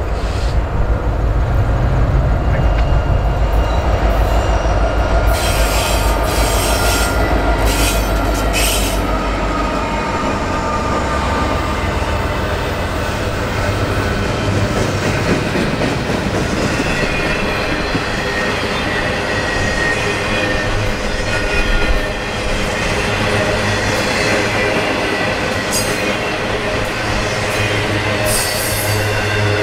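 Norfolk Southern double-stack intermodal freight train passing close by: the diesel locomotives go by with a deep engine rumble for about the first ten seconds. Then the container cars roll past steadily, with thin high squealing tones from the wheels.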